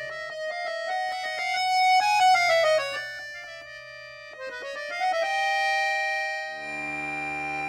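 Accordion playing quick runs of short notes that step up and down, then holding a high note. Near the end a fuller sustained chord with low bass notes comes in.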